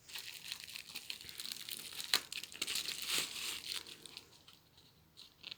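Bubble wrap and plastic packaging crinkling as it is unwrapped by hand, with a few sharp crackles. It dies down about four seconds in.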